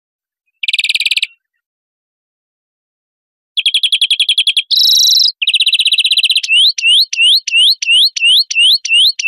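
European greenfinch song: short rapid trills, a buzzy nasal wheeze about five seconds in, then a string of rising whistled notes about three a second.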